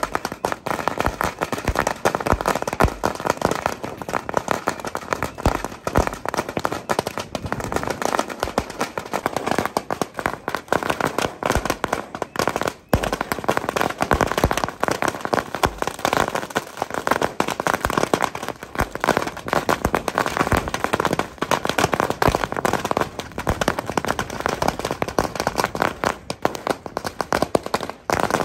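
A long string of firecrackers going off, a continuous rapid crackle of sharp pops.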